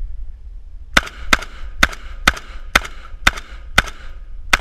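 Vepr 12 semi-automatic 12-gauge shotgun firing in rapid succession: eight shots about two a second, starting about a second in, with low-brass target loads from a 10-round magazine. Each round cycles and fires without a stoppage, the sign that the polished action is running reliably.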